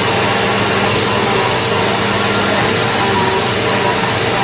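Eureka PowerSpeed upright vacuum cleaner running steadily at full power: a loud motor rush with a high, steady whine.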